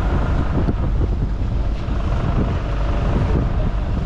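Wind buffeting the microphone over a steady low hum of the boat's machinery, a dense rumble that holds level throughout.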